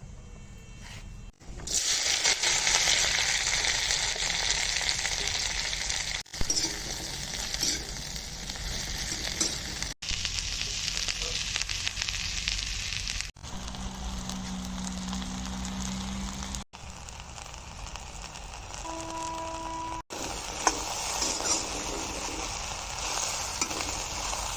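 Okra frying in hot oil in a pan, a steady loud sizzle with stirring, starting about a second and a half in and breaking off for an instant every few seconds.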